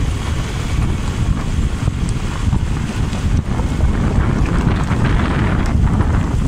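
Wind buffeting the microphone: a loud, uneven low rumble that rises and falls with the gusts.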